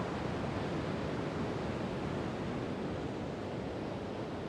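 Steady rushing wash of sea surf breaking on a sandy beach.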